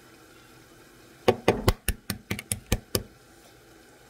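Hen's eggs being tapped against a hard edge to crack them: a quick run of about eight sharp taps starting just over a second in, the first few the loudest.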